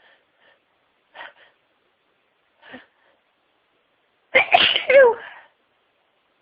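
A person's sneeze build-up: a few faint, short, catching breaths, then a loud sneeze a little over four seconds in, ending on a voiced cry that falls in pitch.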